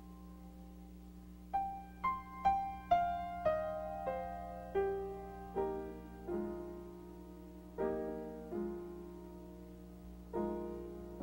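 Solo piano music: after a short lull, a run of single notes that falls in pitch, then slower chords, over a faint steady low hum.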